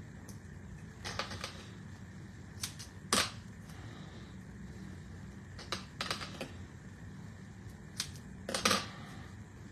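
Light, irregular clicks and taps, some in quick little clusters, from fingers handling small pieces of paper and foam tape on a glass craft mat.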